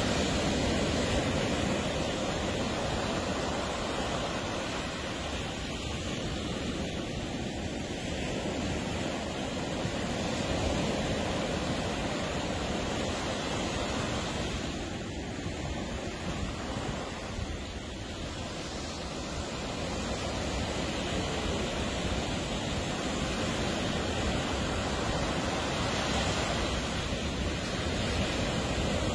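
Ocean surf washing on the beach in a steady rush, the waves swelling and easing slowly, with wind on the microphone.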